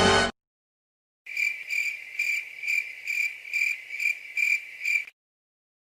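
Crickets chirping, the stock 'awkward silence' sound effect: a regular train of high chirps, about two a second, lasting about four seconds and stopping abruptly. A music clip cuts off just as it starts.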